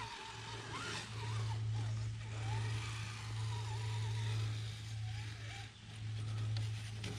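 Axial SCX10 III RC crawler's electric motor and gear drivetrain whirring as the truck crawls slowly over roots on 2S power, a steady low hum that swells and dips with the throttle.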